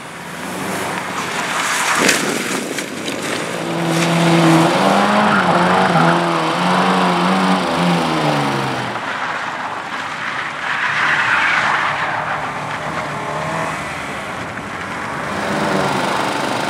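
Racing car engine revving hard, its pitch rising and falling several times as it is driven through the course, with tyres skidding on the surface. There is a sharp knock about two seconds in.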